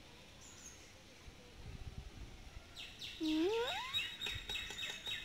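Birds chirping rapidly from about three seconds in. At the same time a small child gives a short, steeply rising whine.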